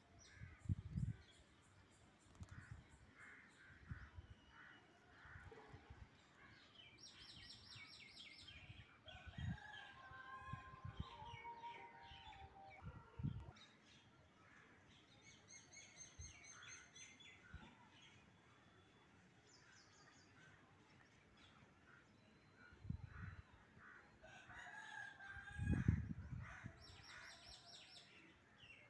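Faint bird calls from trees: short, sharp, repeated calls at intervals and one longer gliding call about ten to twelve seconds in. Low thumps on the microphone near the start and near the end are the loudest sounds.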